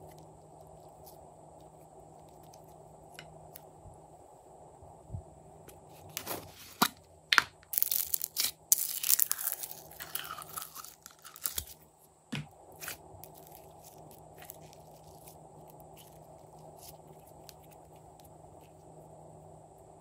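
Glitter slime handled with bare fingers, giving faint sticky clicks. About six seconds in comes a run of louder crackling and popping lasting several seconds, as green glitter slime is pulled out of a clear plastic tub.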